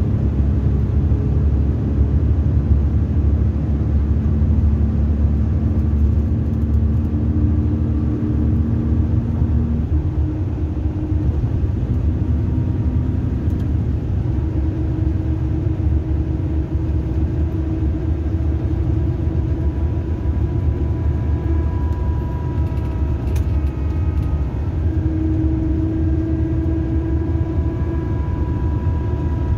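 Mercedes-Benz coach heard from inside the passenger cabin: a steady low engine and road rumble, with faint whining tones that shift in pitch now and then.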